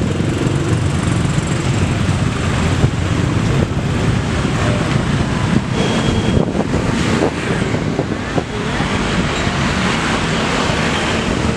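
Road traffic: engines of cars and motorcycles running and passing, a steady, loud mix of engine and tyre noise.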